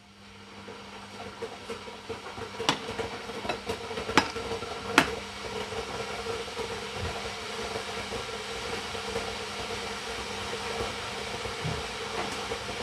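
A kitchen appliance running with a steady hiss and hum that builds up over the first couple of seconds and carries on, with a few sharp clicks a few seconds in.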